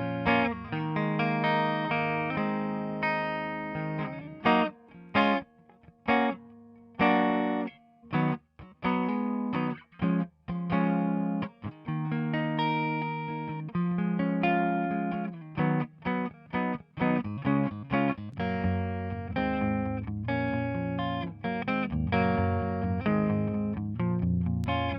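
Electric guitar track playing chords, run through the Softube Tape emulation plugin. From about four seconds in to about twelve it breaks into short stabbed chords with brief gaps, then returns to sustained playing.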